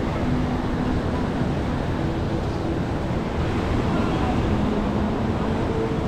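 Steady beach ambience: surf washing in and wind buffeting the microphone, with scattered voices of people around.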